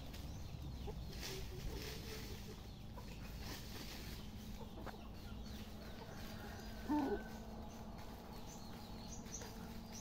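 A rooster clucks once, briefly, about seven seconds in, over a faint steady low hum.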